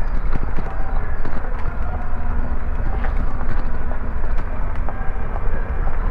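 Bicycle riding over a brick-paved street, recorded from a GoPro mounted on the bike: a steady low rumble with rapid rattling and clicks as the tyres and frame jolt over the bricks.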